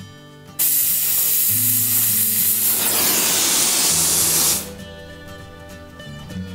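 A gas torch flame hissing loudly as it heats a clamped iron brace to a red glow. The hiss starts about half a second in and cuts off suddenly after about four seconds.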